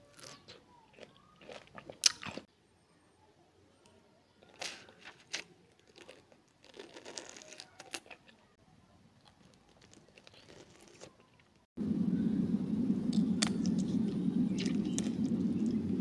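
Close-miked crunching and chewing of ice dusted with chili powder, with a sharp loud crunch about 2 s in and softer chewing strokes after it. About 12 s in, a steady low droning noise starts abruptly and runs on.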